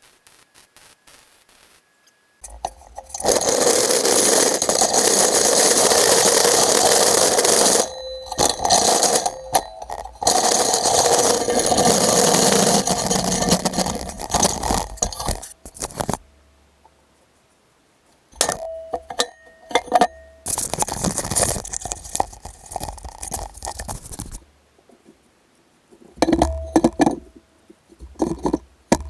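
Metalwork on the steel square-tube frame: three long bursts of harsh, hissing noise, each lasting several seconds, with short breaks between them. Separate metal clinks and knocks follow near the end.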